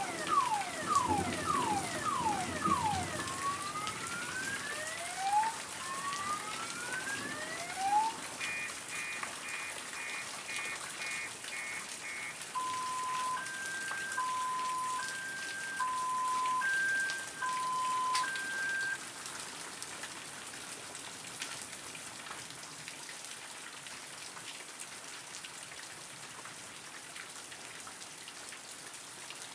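Steady rain falling on trees and the ground. Over it an electronic alarm siren cycles through its patterns: fast falling chirps, rising whoops, rapid beeps, then a high-low two-tone warble. It stops a little past halfway, leaving only the rain.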